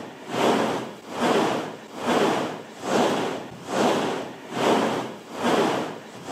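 Rhythmic rubbing or swishing strokes, a little more than one a second, even and unbroken.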